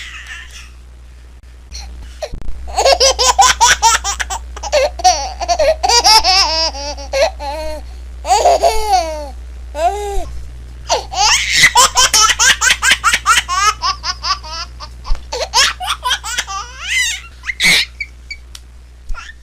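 A baby laughing in long runs of rapid, high-pitched giggles and squeals, with short breaths between. A steady low hum sits underneath.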